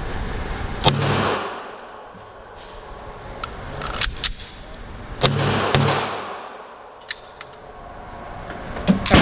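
Pistol shots echoing in an indoor range, heard as a single report about a second in, two about five seconds in and another near the end, each with a long reverberant tail. Sharp metallic clicks of pistol and magazine handling fall in between.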